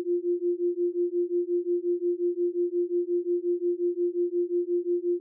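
A brainwave-entrainment tone: one steady pure tone whose loudness pulses evenly about six times a second.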